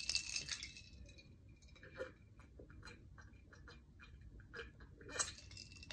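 Faint swallowing and small mouth clicks as a drink is sipped from a glass, with slightly louder sounds about two seconds in and near the end.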